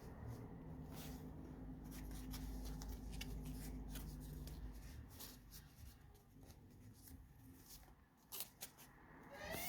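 Paper pages of a handmade junk journal being handled and turned: soft rustles and light clicks of paper and card over a low room rumble. At the very end a siren begins to wail, rising in pitch.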